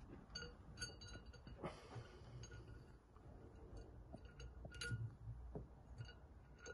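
Scattered faint metal clinks and clicks as a steel auger extension bar and its hitch pin and R-clip are handled, the brightest about five seconds in.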